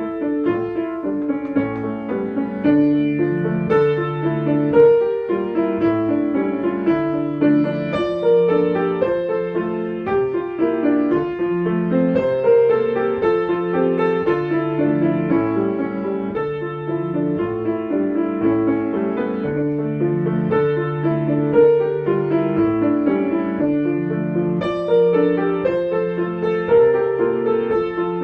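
Piano music plays steadily with several parts layered: a repeated low figure under busier higher notes. The parts stand for different insects, such as a grasshopper's 'dum dum' and buzzing bees, sounding together.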